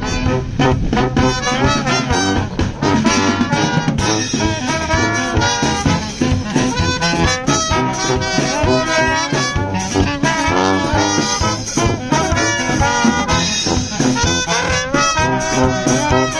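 Lively brass music in a swing style, with trumpets and trombones playing over a steady beat.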